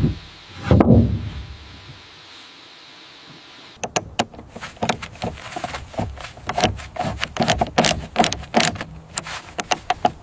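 Handling and work noises: one heavy knock with a ringing tail about a second in, then after a short lull many quick, irregular clicks and clattering knocks.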